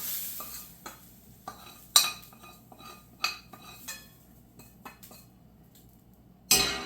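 A cooking utensil knocking, clinking and scraping against a stainless steel pan, with one sharp knock about two seconds in and a longer clatter near the end. Light sizzling fades out in the first moment.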